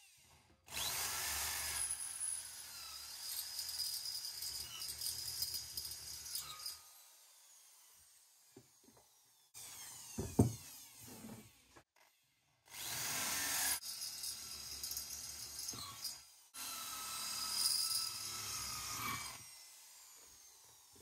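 Corded electric hand drill redrilling bolt holes in an aluminium cylinder head, in several runs of a few seconds each, the motor winding down after each stop. It is clearing weld that has leaked into the edges of the holes so they come out round again.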